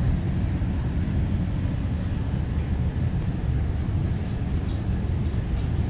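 Steady low cabin noise of a jet airliner in flight, an even rush with no breaks.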